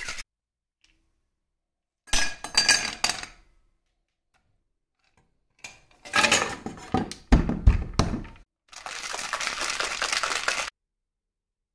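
Ice cubes clinking into a metal cocktail shaker tin, then sharp knocks of ice and metal as the shaker is loaded and closed, then about two seconds of steady rattling as the shaker is shaken with ice, stopping suddenly.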